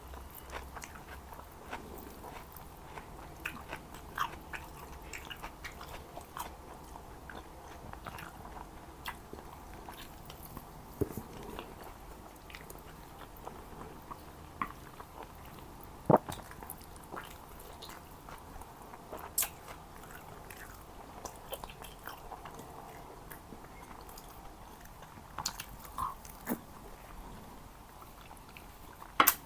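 Close-miked eating: a person chewing and biting Jordanian mansaf, lamb and rice in yogurt sauce, with wet mouth clicks and smacks scattered throughout, a few of them sharper and louder.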